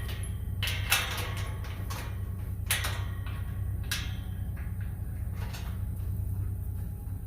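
Steel farm gates swinging on their newly extended threaded-rod hinge pins, with several sharp metallic knocks and clanks as they move and meet, over a steady low rumble.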